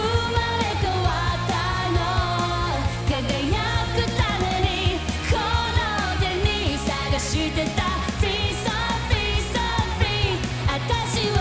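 A woman singing a pop-rock song over electric guitar, bass and a steady drum beat.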